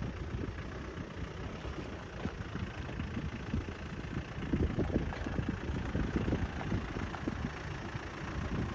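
A 4x4's engine running slowly on a rough off-road track, with a steady low rumble and irregular uneven low knocks.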